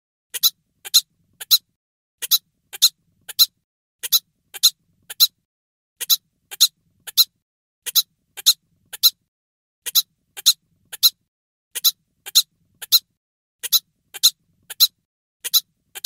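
Cartoon-style cute hiccup sound effect: short, high, squeaky hiccups in sets of three, repeating about every two seconds.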